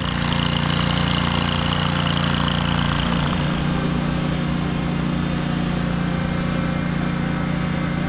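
Ventrac compact tractor mowing with a front-mounted mowing deck, its engine and blades running steadily under load. A high whine sits over the engine for the first three seconds, and the sound shifts slightly after that.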